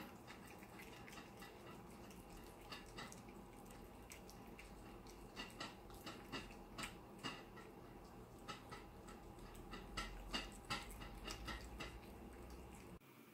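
Cats eating from bowls: faint, irregular clicks and smacks of chewing and licking, several a second, over a faint steady hum.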